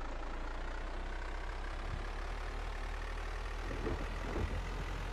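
Car engine running steadily, heard from inside the cabin as a low hum, with a few small knocks about four seconds in.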